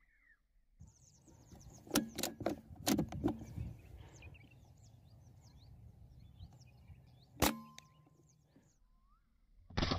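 A single sharp crack of a PCP air rifle shot about seven and a half seconds in, hitting a dove. Before it comes a cluster of clicks and knocks between about two and three and a half seconds, and small birds chirp in the background throughout. A further loud burst with a ringing tail comes at the very end.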